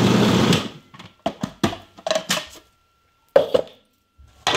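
Food processor running and cutting off about half a second in, followed by a series of sharp plastic knocks and clatters as the bowl and lid are handled.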